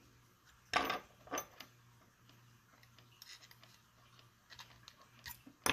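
Small parts of a Glock 19 Gen 4 pistol frame clicking as they are worked by hand during detail stripping, with the slide lock being pulled out: a sharp click about a second in, another soon after, then lighter scattered clicks and a sharper one at the end.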